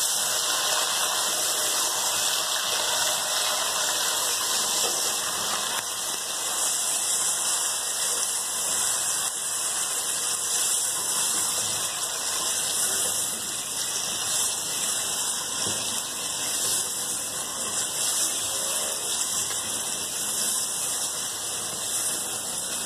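Chicken pieces and large potato chunks sizzling steadily as they fry in oil in a steel pot.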